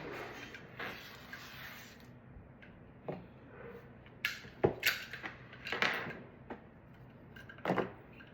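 Small 3D-printed plastic parts being cleaned up with hand tools: scattered clicks, scrapes and knocks of plastic and tools, the sharpest near the middle.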